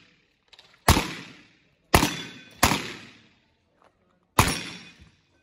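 Four shots from a Smith & Wesson 929 Jerry Miculek 9mm revolver, each a sharp crack that rings out and fades within about half a second. The second and third come close together, and the last follows after a pause of nearly two seconds.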